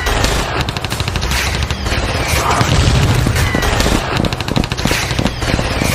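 Sustained rapid automatic gunfire: a dense, unbroken run of closely spaced shots that starts abruptly.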